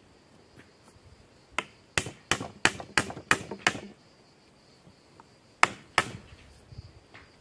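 Hammer blows on a frame of wooden poles: a quick run of seven strikes, about three a second, then a pause and two more.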